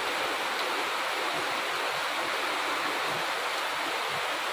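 Heavy rain falling steadily, an even, unbroken hiss of a downpour.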